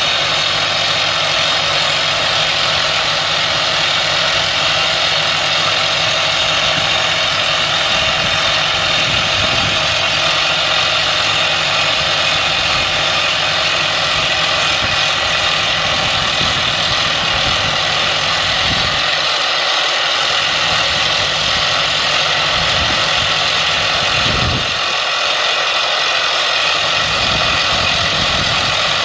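Soosan JD-800 crawler rock drill drilling into rock: a loud, steady din of the rig's engine and drilling gear, with compressed air blowing rock dust out of the hole.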